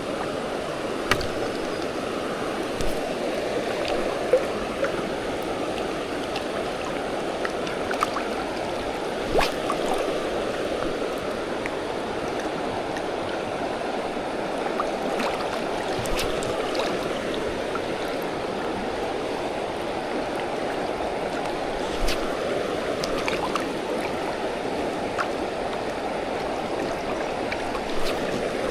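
Steady rushing of river water, a fast-flowing trout stream running close by. A handful of short, sharp clicks or knocks are scattered through it.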